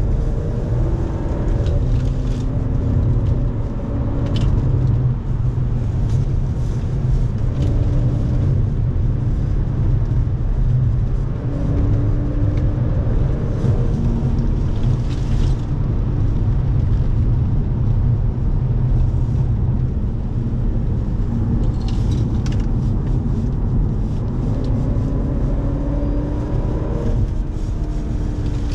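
Audi's engine and road rumble heard from inside the cabin while lapping a race track at speed. The engine note climbs and drops back several times over a heavy, steady low rumble of tyres and road.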